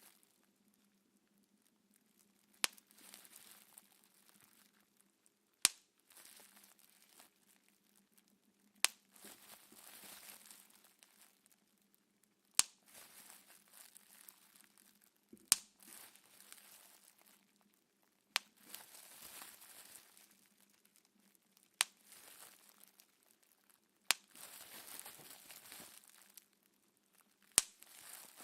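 Plastic bubble wrap being handled and popped one bubble at a time: nine sharp pops, roughly every three seconds, with the plastic crinkling in between.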